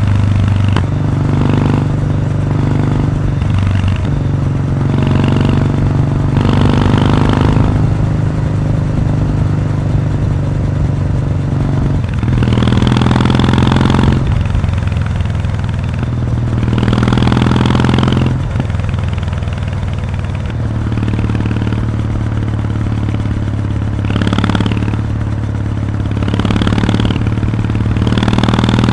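Kawasaki W800's air-cooled parallel-twin engine running on the move through its stock muffler with the baffle removed, a loud, open exhaust note whose pitch steps up and down several times. Bursts of rushing noise come and go over it.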